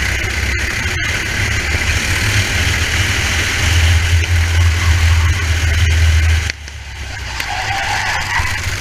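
Racing kart engine running at speed, heard from an onboard helmet camera with wind rushing over the microphone. Engine and wind are loudest in the middle, then drop sharply about six and a half seconds in, picking up again toward the end.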